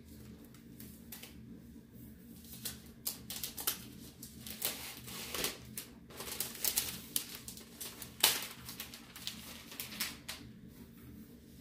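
Crinkling and rustling of the protective wrapping sheet as it is peeled off a new MacBook Pro, a run of short crackles and clicks, with one sharper click about eight seconds in.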